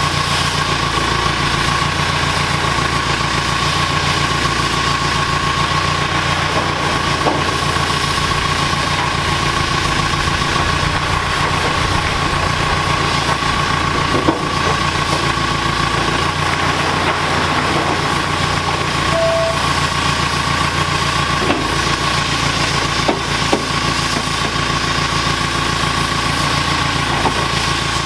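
JCB telescopic handler's diesel engine running steadily near idle, with a steady high whine over it and a few faint knocks, the clearest about halfway through.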